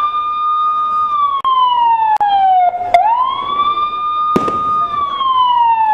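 Police-style wailing siren sound effect: it rises to a high note, holds for about a second, then slides slowly down, twice. Several sharp clicks cut across it, the loudest about four and a half seconds in.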